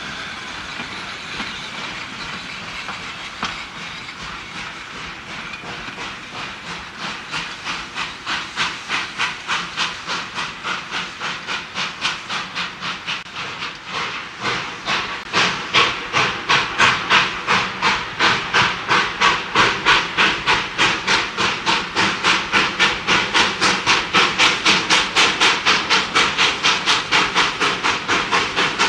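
Baldwin 2-6-2 steam locomotive No.12 working hard, its exhaust beating at a steady rhythm of about three beats a second over a hiss of steam. The beats grow in from about six seconds in and are loudest over the second half.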